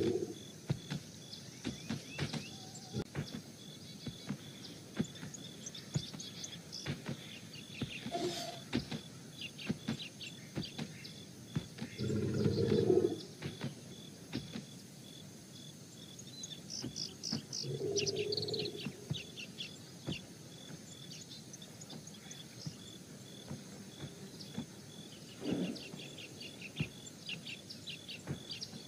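Outdoor ambience of small birds chirping and calling, with a faint steady high-pitched drone underneath. A few louder, deeper sounds of about a second each stand out, the loudest about twelve seconds in and another around eighteen seconds.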